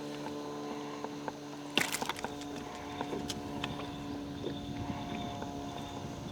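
Steady hum of a boat motor, with a few sharp knocks on the boat about two seconds in.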